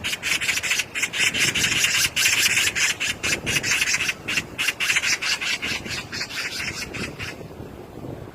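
Magpie chattering: a fast, rasping rattle of many short notes, several a second, that tails off about a second before the end.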